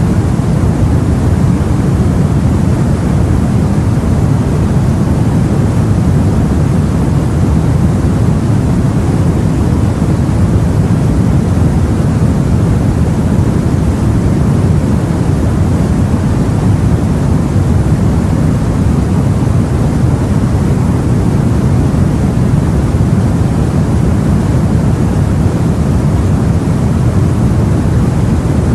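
Steady, low noise of the open sea heard aboard a boat: an even rumble with no separate wave breaks or other events.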